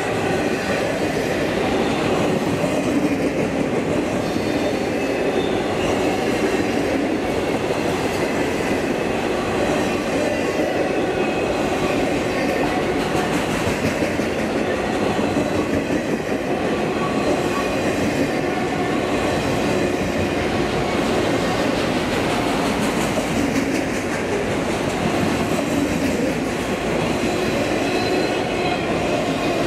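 Freight train of enclosed autorack cars rolling past, a steady rumble and clatter of steel wheels on rail.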